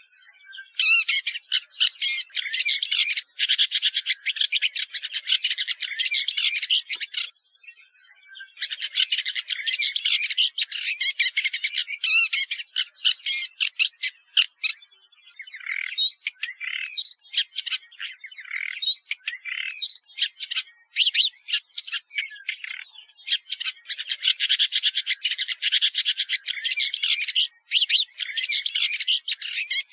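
Woodchat shrike singing: long bouts of rapid, varied warbling, with a short break about seven seconds in and looser, scattered phrases through the middle before a dense bout near the end.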